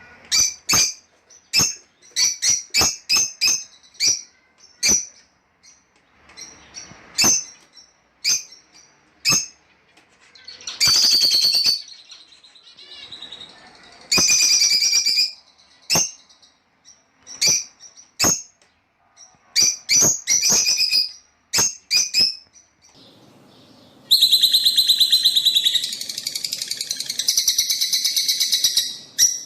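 Lovebirds calling: sharp, shrill chirps in quick series, broken by longer bouts of dense chattering. The longest bout runs for about five seconds near the end.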